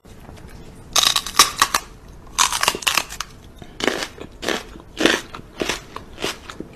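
A person chewing crunchy food close to the microphone: a steady run of loud crunches, about two a second, starting about a second in.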